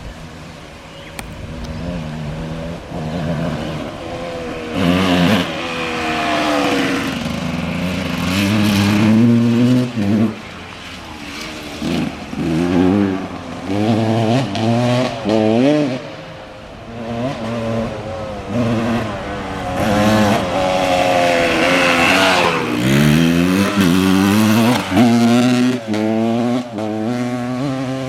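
KTM 200 two-stroke single-cylinder dirt bike engine, freshly rebuilt top end, revving hard as the bike is ridden. The pitch climbs and drops back over and over through the gear changes and throttle lifts.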